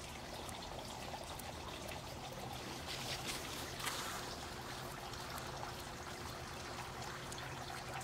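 Quiet, steady background hiss with a faint steady hum underneath, and a couple of faint clicks about three to four seconds in.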